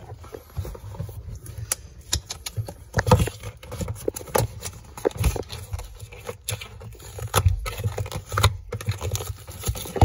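Hands handling and opening a cardboard shipping box: irregular taps, knocks and scrapes against the cardboard.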